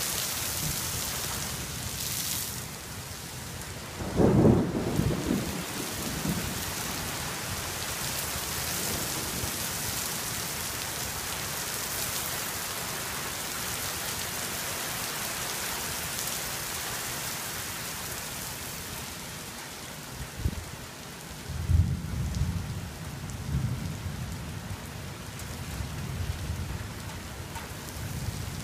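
Steady rain falling on pavement and foliage during a thunderstorm. A loud clap of thunder breaks in about four seconds in, and low thunder rumbles on in several swells in the last third.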